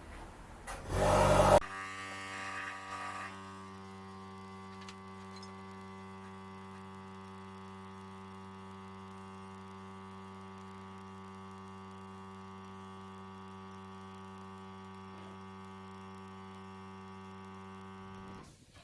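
Steady electrical hum with many evenly spaced overtones, running unchanged and then cutting off abruptly near the end, after a brief loud noisy burst about a second in.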